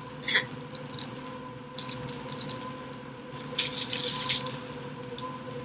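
Clear plastic bread bag crinkling and rustling in irregular bursts as it is handled and opened around a sausage bun, loudest about 2 and 4 seconds in.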